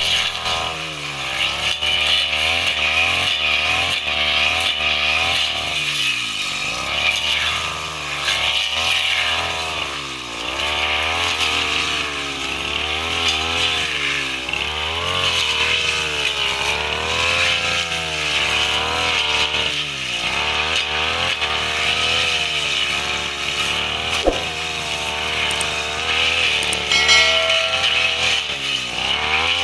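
Two-stroke brush cutter running without a break, its engine speed rising and falling every second or two as it cuts.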